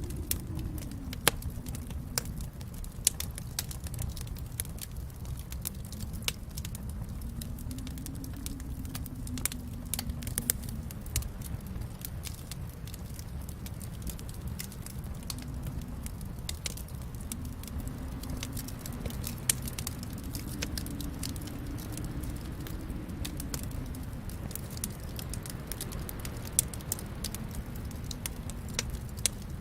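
Wood fire in a fireplace crackling, with scattered sharp pops and snaps over a steady low rumble of the flames.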